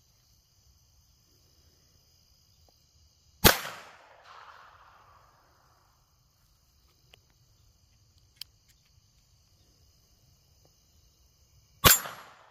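Homemade sheet-metal .22 derringer firing two shots about eight seconds apart, each a sharp crack followed by an echo that dies away over a second or so. A few faint clicks fall between the shots, over crickets chirping steadily.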